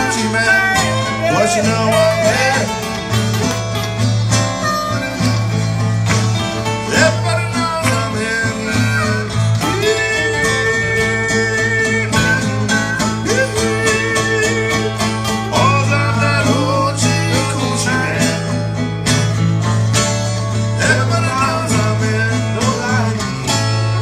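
Harmonica taking an instrumental blues solo over two acoustic guitars, its notes bending up and down, with one long held note about ten seconds in.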